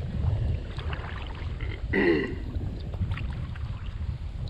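Wind buffeting the microphone with a steady low rumble as a kayak heads into the wind, with faint water sounds around the hull. A brief voice sound comes about two seconds in.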